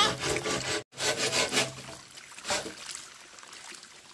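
Green bamboo poles knocking and scraping against each other as they are shifted into place, then, after a short break, water from a hose splashing and trickling into a plastic basin.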